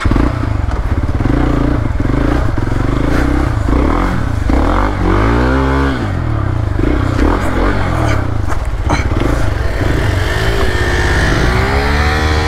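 Motorcycle engine revving as the bike sits bogged down in mud, the revs rising and falling in repeated bursts; its plain road tyre cannot get grip.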